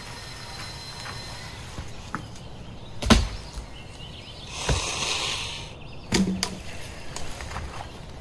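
Dead logs being handled by hand: a sharp wooden knock about three seconds in as a log is dropped, a rustling scrape, then a second knock about six seconds in.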